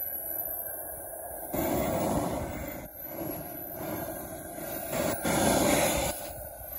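EvoJet Neo 220N model turbine engine of a radio-controlled Mirage 2000 scale jet running at taxi power, its high whine dipping and rising in pitch with the throttle. A rushing noise comes and goes in surges alongside it.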